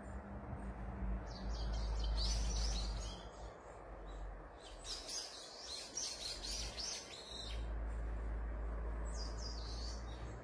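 Birds chirping in three short clusters of quick high calls, over a steady low rumble.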